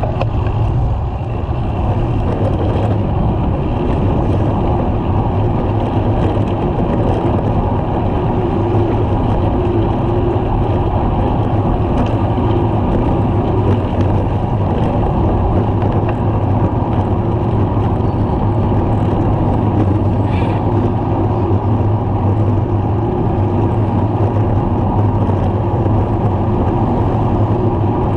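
Steady rush of wind and road noise on a handlebar-mounted camera's microphone on a moving road bike, mixed with the running of cars in traffic alongside.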